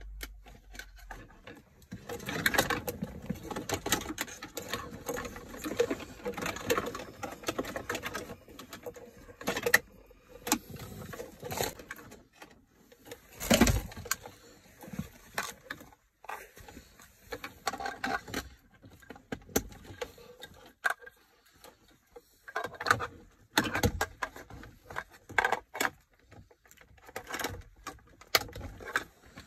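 Handling noise from plastic dash trim, the head-unit screen and its wiring harness: irregular rustling, scraping and small clicks, with a few sharper knocks about 13 s in and again about 24 s in.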